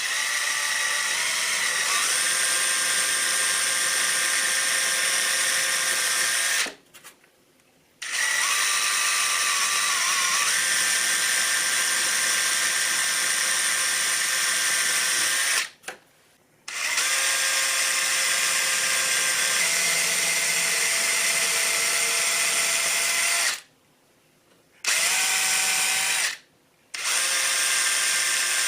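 Power drill with a small bit boring pilot holes into hardened wood filler in a door's old screw holes. It runs in steady spells of several seconds each, stopping briefly four times.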